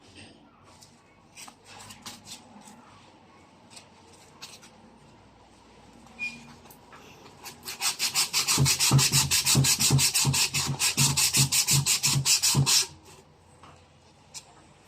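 Hand sanding with a sanding block: a run of rapid back-and-forth scraping strokes, several a second, starting about halfway in and stopping abruptly about five seconds later. Before that there is only faint handling and a few small clicks.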